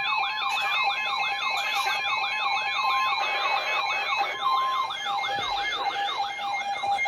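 Electronic siren sounding a fast yelp, its pitch rising and falling rapidly over and over, with a steady high tone held underneath.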